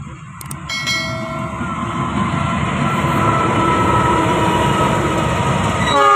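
Locomotive-hauled passenger train pulling into the station, its rumble growing louder, with high steady tones from about a second in. The locomotive's horn sounds at the very end.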